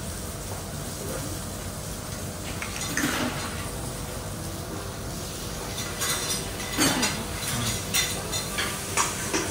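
Cutlery and dishes clinking and scraping now and then over a steady low background hum.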